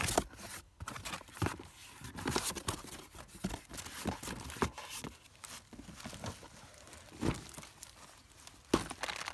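Cardboard box flaps rustling and scraping as they are handled, with scattered knocks, the loudest right at the start and just before the end.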